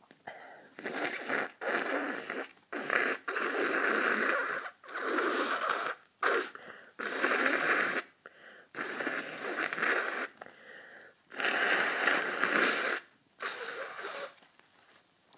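A person with a cold breathing heavily and noisily, about nine wheezy breaths in and out, each a second or so long with short pauses between.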